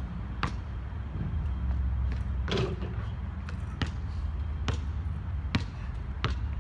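Basketball being dribbled on a hard outdoor court, with a sharp bounce a little more often than once a second.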